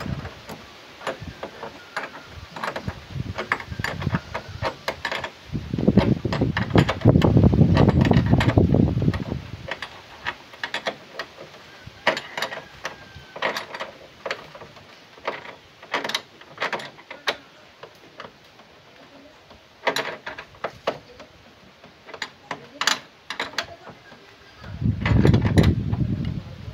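Hand wrench tightening bolts in a timber frame: a run of sharp metal clicks and knocks in uneven clusters. A low rumble swells up twice, about six seconds in and again near the end.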